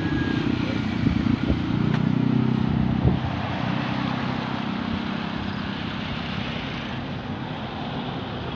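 A motor vehicle engine running steadily, with a few short knocks in the first three seconds, then fading gradually over the rest.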